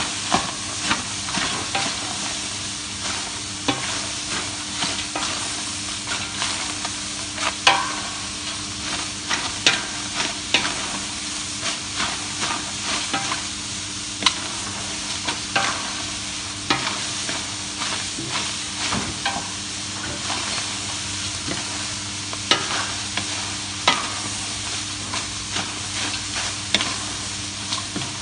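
Wooden spoon stirring a large stainless steel pot of sliced onions, with irregular scrapes and knocks of the spoon against the pot over a steady sizzle as the onions cook down in the dry pot without oil.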